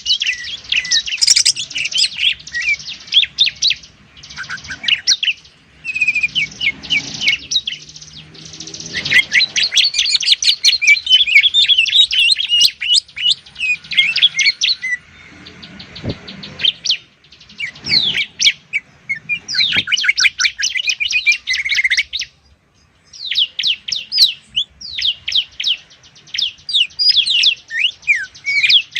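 Cagebird song of a green leafbird (cucak ijo) and a bar-winged prinia (ciblek): long runs of rapid, high chattering notes, broken by a few short pauses.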